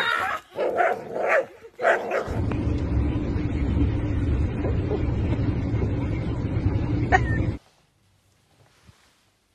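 A dog barking and yipping in short bursts while it tugs on a stick. Then, about two seconds in, a steady low rumble of road noise inside a moving car's cabin takes over and cuts off suddenly near the end.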